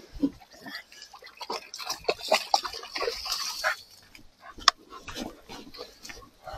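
English springer spaniel in a shallow stream, splashing and drinking, then scrambling out onto the bank. There is one sharp knock about four and a half seconds in.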